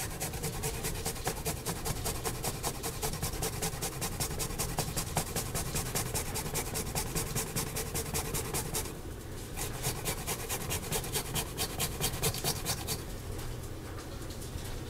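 A garlic clove rubbed quickly back and forth over a Microplane rasp grater, making steady rasping strokes. There is a short break about nine seconds in, and the grating stops about thirteen seconds in.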